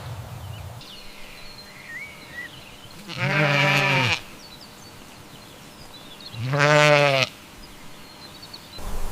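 Farm animal bleating twice, each bleat about a second long and some three seconds apart, the second one wavering slightly in pitch. Faint bird chirps come in between.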